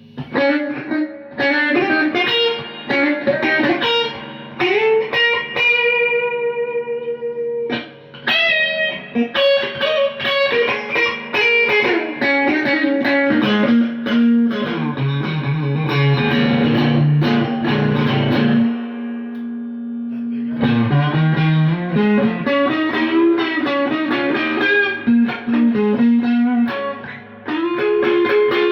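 Rebuilt Telecaster-style electric guitar with new budget pickups, played through a Fender Blues Junior amp: single-note licks with bent notes and a few held notes, a brief pause about eight seconds in.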